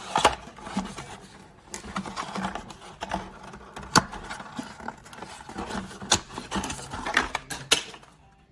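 Irregular clicking and clatter from a slim wireless keyboard, a few sharp clicks standing out louder than the rest.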